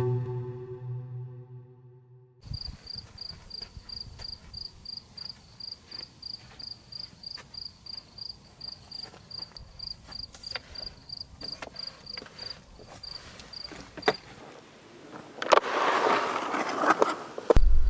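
Music dies away in the first two seconds, leaving a cricket chirping steadily at about three chirps a second. Near the end the chirping stops, a thin high steady trill takes over, and a louder rustling noise rises briefly.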